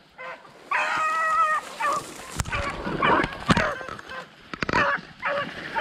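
Beagles baying while running a rabbit: one long, held bawl about a second in, then shorter overlapping cries, with a few sharp knocks among them.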